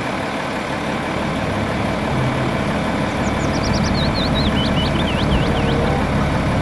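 Volvo FMX tipper truck's diesel engine running steadily while the tipping body is raised hydraulically. From about halfway through, a bird calls a quick series of short, falling chirps.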